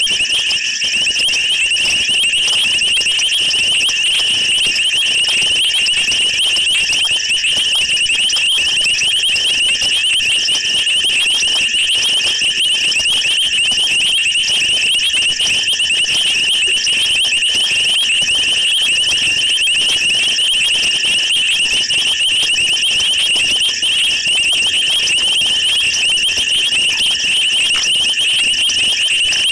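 Steady, high-pitched chorus of night insects: a continuous, finely pulsing trill that never breaks.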